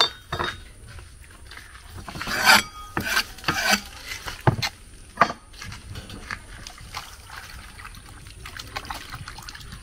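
Irregular knocks and rubbing, scraping strokes from food being prepared by hand. They are loudest and densest a couple of seconds in, then give way to fainter, quicker clicks.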